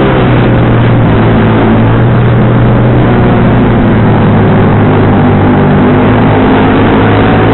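Sport motorcycle engine running at a steady cruise through a racing exhaust, with wind rushing over the helmet-camera microphone.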